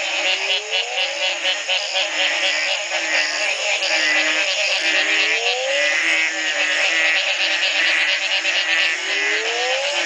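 Dense chorus of many frogs calling at once after heavy rain: a shrill mass of trilling, pulsed calls, with lower short notes repeating throughout and a louder rising call about every four seconds. It is a breeding chorus set off by the first night of rain after a long drought.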